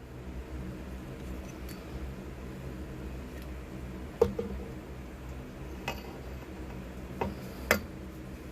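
A few sharp light clicks and knocks of a small magnesium headlamp being handled, four in all, the loudest about four seconds in, over a steady low hum.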